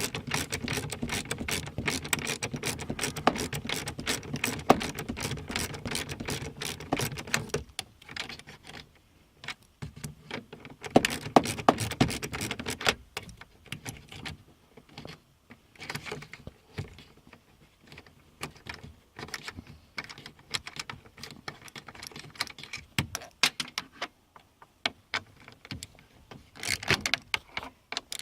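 Ratchet with a 7 mm socket clicking and metal tools clattering while the headlight switch's mounting bolts are undone. Rapid, dense clicking for the first several seconds, then scattered clicks and short bursts, with a louder cluster about a third of the way in and another near the end.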